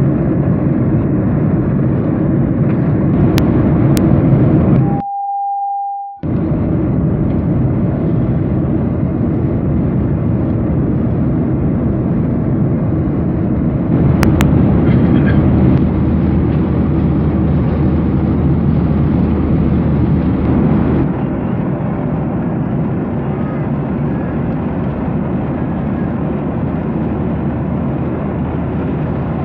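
Steady in-flight cabin noise of a Boeing 737-800 in cruise: a continuous rumble of engines and airflow. About five seconds in the noise drops out briefly, leaving a single steady beep about a second long.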